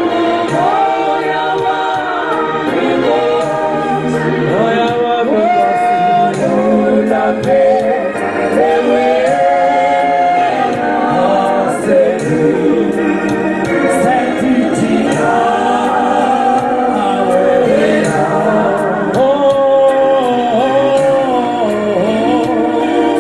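Choir singing a gospel song in several voices, with notes held and gliding throughout.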